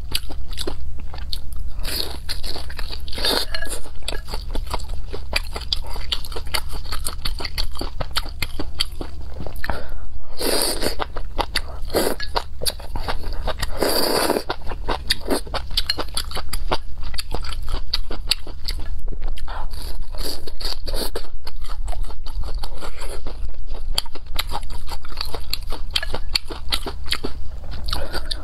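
Close-miked eating: crisp crunching bites into a breaded fried strip and wet chewing, with a few loud slurps of spicy noodle soup around the middle.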